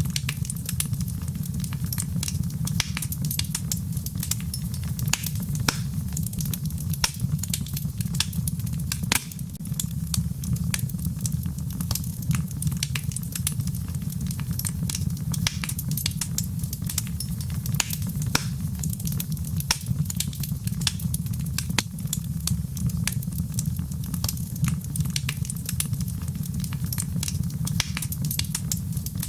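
Wood fire crackling in a fireplace: frequent sharp, irregular pops and snaps over a steady low rumble.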